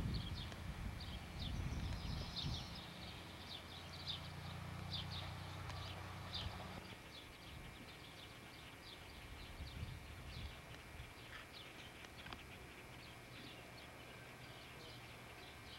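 Small birds chirping over and over, short high chirps about three a second. A low steady rumble lies under them for the first half and returns briefly near the end.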